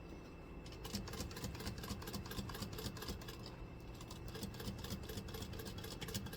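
Servo-motor walking-foot sewing machine stitching through leather: a steady motor hum with a fast, even clatter of stitches, starting about a second in.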